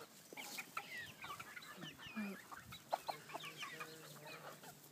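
Flock of chickens, mostly White Leghorn hens, clucking softly with many short scattered calls.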